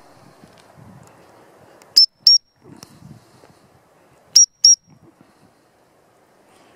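Gundog training whistle blown in two double pips, about two seconds apart: two short, shrill blasts, then two more.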